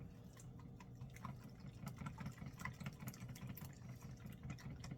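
Beaten egg and milk mixture being poured into a baking pan, a faint quick wet pulsing with a few light clicks.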